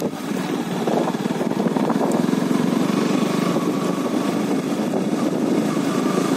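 KTM RC 125's single-cylinder four-stroke engine running steadily under way, heard from on the moving motorcycle.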